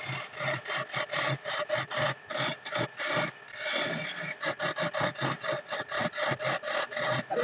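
A hand turning chisel cutting a wooden lamp-base spindle spinning on a belt-driven wood lathe, the cut coming in quick repeated strokes about three a second, with a steady tone from the running lathe underneath.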